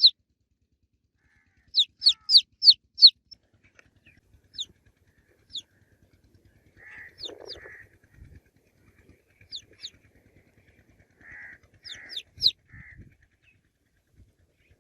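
Baby chicks peeping: loud, high calls that each slide downward in pitch. They come in a quick run of about five about two seconds in, then singly and in pairs, with another quick run of four near the end, and a few softer, lower sounds in between.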